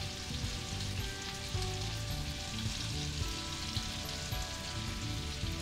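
Fish pieces frying in butter in a pan, a steady sizzle.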